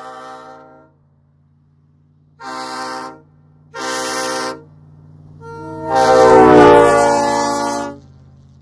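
Multi-chime train air horn sounding a chord: the tail of one blast, then two short honks, then a longer, much louder blast that swells up to full volume. A steady low hum runs underneath.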